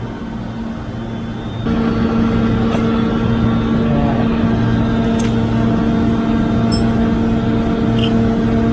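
A motor vehicle engine running steadily; its hum grows louder about two seconds in and then holds, with a few faint clicks over it.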